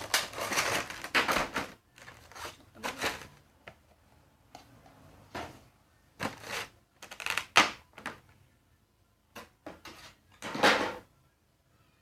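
Funko Pop box and packaging being handled as the figure is taken out: short, irregular bursts of rustling and scraping with quiet gaps between them.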